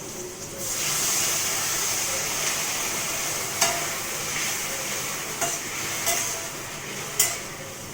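Water poured into a hot pan of fried onions, boiled potatoes and turmeric hisses and sizzles up about half a second in, then slowly dies down. A few sharp clicks of the stirring spoon against the pan come later.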